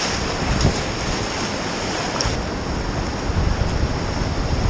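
Whitewater river rapid rushing and churning close around a kayak as it paddles through, a steady loud roar of water with wind buffeting the microphone.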